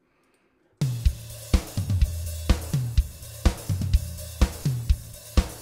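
Soloed raw multitrack recording of an acoustic rock drum kit: kick, snare, toms, hi-hat and cymbals playing a steady beat at 125 BPM, with a hit about every half second. It comes in about a second in, after a moment of silence.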